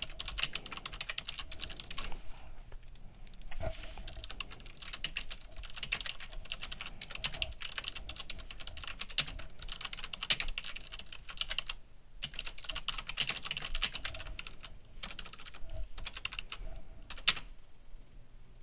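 Typing on a computer keyboard: quick runs of keystrokes with short pauses between them, and one louder keystroke near the end.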